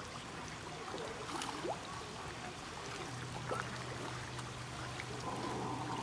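A crowd of koi splashing at the water's surface as they jostle for food, with scattered small splashes over a steady watery wash. A low steady hum joins about halfway.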